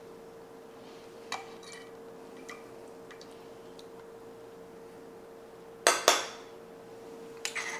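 Metal gravy spoon clinking against dishes while sauce is spooned from a slow cooker onto a plate: a couple of light taps, then two sharp ringing clinks about six seconds in and a few more near the end. A faint steady hum sits underneath.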